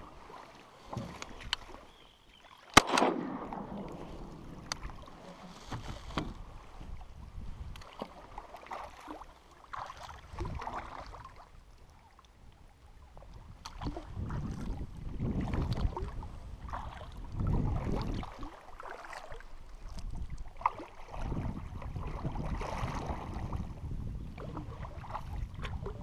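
Paddling a small narrow boat across a lake: uneven paddle strokes splashing, with water washing along the hull. One sharp knock about three seconds in.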